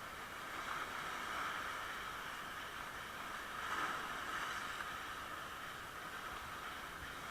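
Steady rushing of water, swelling louder about a second in and again near four seconds.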